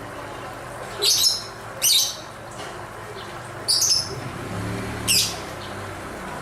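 Lovebird giving four short, shrill, harsh calls, the first two about a second apart and two more later, over a steady low background hum.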